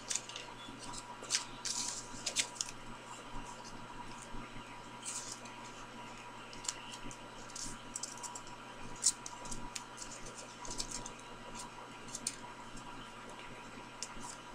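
Folded sticky-note paper rustling and crinkling in the fingers as modular origami pieces are slid together and creased: short, irregular scratches and clicks, over a faint steady hum.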